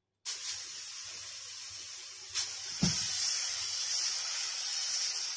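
Adai batter sizzling on a hot iron tawa as a steel ladle spreads it: a steady high hiss that starts abruptly just after the start, with two short knocks about half a second apart near the middle.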